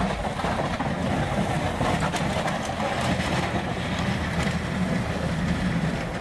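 Plow truck's engine running steadily, with road noise.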